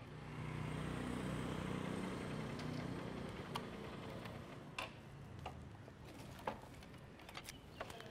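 A vehicle's engine running, loudest in the first few seconds and then fading as it pulls away. A few sharp clicks come later.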